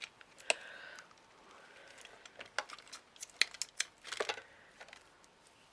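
Light clicks, taps and rustles of small craft materials being handled on a desk, with a quick cluster of clicks about four seconds in.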